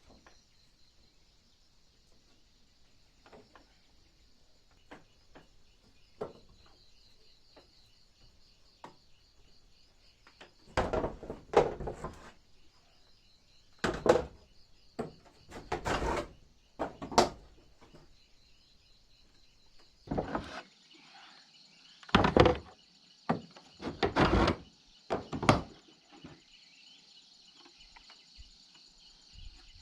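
Steady insect chirring throughout, with a run of loud knocks, bangs and short scraping noises between about 11 and 26 seconds in.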